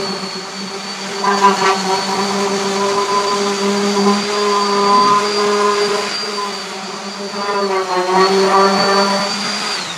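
Power sander running steadily against the truck's metal bumper, a high motor whine that dips slightly in pitch about eight seconds in, then spins down with a falling whine right at the end as it is let off.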